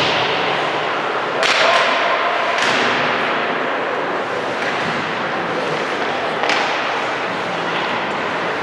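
Basketball game noise in a reverberant gym: a steady din of crowd and players with several sharp, echoing smacks, the loudest about a second and a half in, others near three seconds and past six seconds.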